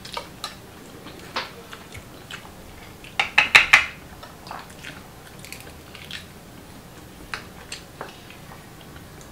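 Cooked clam shells clicking and clacking as they are pried open and handled by hand. There is a quick run of loud, sharp clacks about three and a half seconds in.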